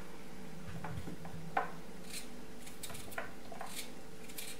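Kitchen knife cutting raw potato held in the hand, with the chunks falling into a plastic bowl: a string of short, crisp cuts and soft knocks at an uneven pace, the loudest about a second and a half in.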